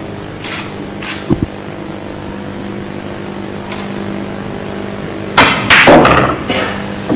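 Pool cue striking the cue ball about five and a half seconds in, followed at once by a quick run of loud clacks as the balls collide.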